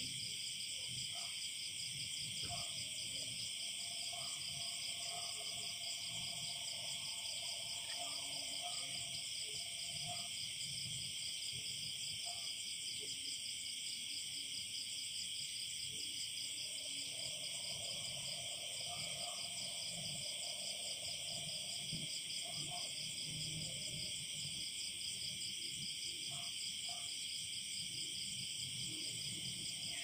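Night chorus of crickets: a dense, steady, high-pitched trilling. Lower frog calls come and go beneath it in two longer spells, a second or so in and again after the middle.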